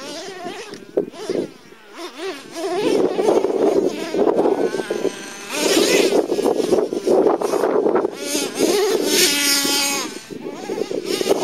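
Traxxas T-Maxx nitro RC truck's modified 3.3 two-stroke glow engine with a drilled-out resonator pipe, revving hard with a high buzzing whine whose pitch rises and falls with the throttle. It gets much louder about two and a half seconds in as the truck drives up a dirt pile under load.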